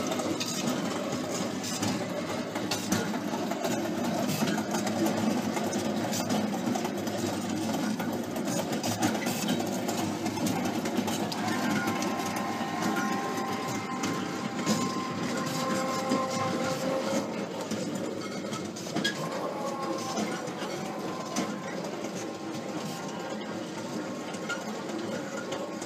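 Homemade propane-fired coffee roaster running: steady burner and drum-drive noise. From about twelve seconds in, a motor whine with several steady pitches joins it as the 12 V electric motor tilts the steel drum.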